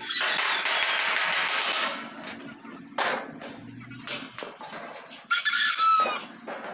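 Hammer taps and handling noise on a sheet of galvanized steel as it is shaped into tricycle floor panelling, with a few sharp knocks. A rooster crows.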